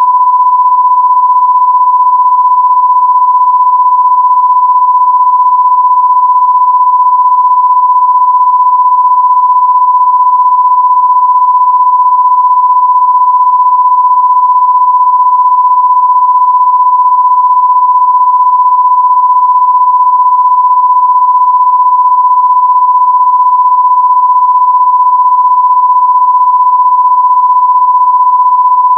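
A loud, steady electronic sine tone at one pitch, about the pitch of a censor bleep, held without a break or any change.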